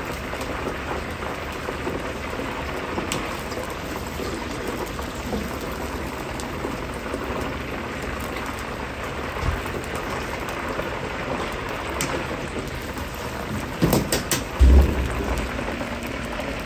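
Oil sizzling steadily in a wok as battered chicken pieces deep-fry, with a few loud clanks near the end.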